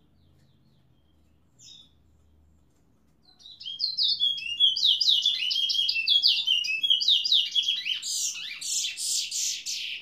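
A caged male towa-towa seed finch singing. There is a single faint note about two seconds in, then from about three seconds a fast, unbroken run of high whistled notes, loudest near the end.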